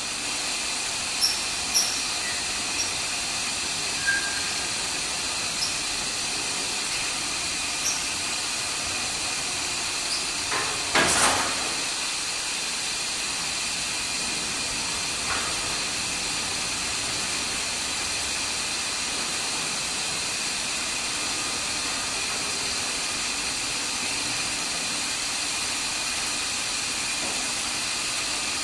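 Steady hissing noise of an AAC autoclave bay while a winch cart hauls cars of cured blocks along the rails out of the autoclave, with scattered sharp metallic clicks and a louder clanking rattle about eleven seconds in.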